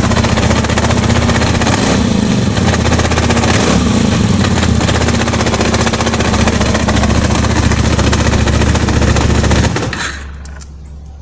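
Kasinski Comet motorcycle's V-twin engine running with a loud, rapid rattling clatter: the strange new engine noise its owner cannot yet explain. The engine stops about ten seconds in.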